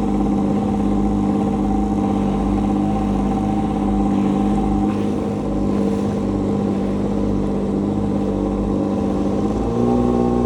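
Jet ski engine running at a steady speed, stepping up in pitch near the end as the engine speeds up.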